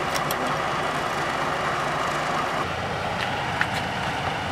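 Steady outdoor background noise with a low rumble, like distant traffic, broken by a few faint short clicks.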